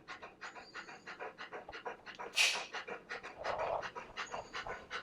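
Young Newfoundland dog panting rapidly in a basket muzzle, several quick breaths a second, with one louder burst about halfway through; the panting of a frightened dog during grooming.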